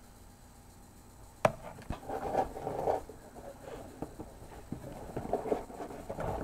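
A sharp knock about a second and a half in, then irregular rustling and scraping as a cardboard box is handled and tilted.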